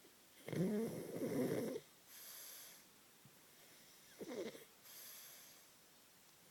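Snoring: two rattling snores, the first long and loud, the second about three seconds later and shorter, each followed by a softer, hissing out-breath.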